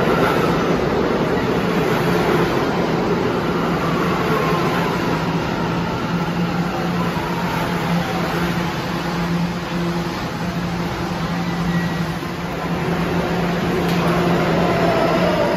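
Kawasaki-built R211 subway train pulling into the station and braking to a stop. Its traction motors whine in falling tones as it slows, over a steady low hum. Near the end a new rising whine begins.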